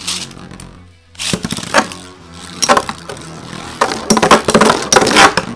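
Two Metal Fight Beyblades, Lightning L-Drago 100HF and Gravity Destroyer AD145WD, spinning and colliding in a clear plastic stadium: a run of sharp metal clacks as they strike each other and the stadium wall, thickest about four to five seconds in.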